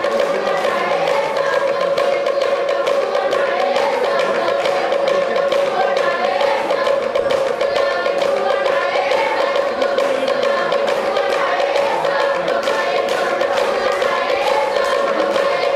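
Group singing accompanying a Fijian meke dance, the voices gliding over a steady beat of percussion strikes and a held low tone.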